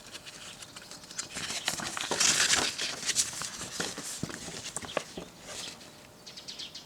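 A folded paper poster being unfolded and handled: paper rustling and crinkling with small crackles and clicks, loudest about two seconds in.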